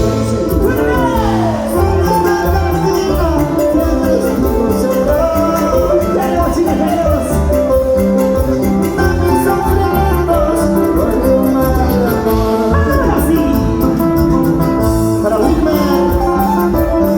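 Latin American band music with a steady beat, a bass line and a sung melody.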